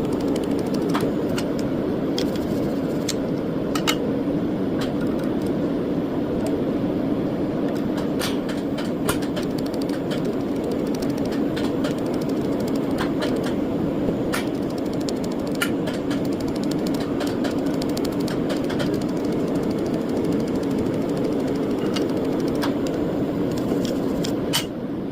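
A small machine running steadily with a constant hum, with irregular sharp clicks scattered through it.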